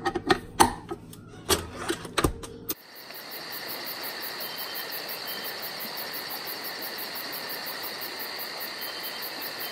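Clicks and knocks as a wire whisk is fitted to a Hamilton Beach stand mixer. About three seconds in, the mixer's motor starts and runs steadily, the whisk beating a thick cream-cheese batter in the stainless steel bowl.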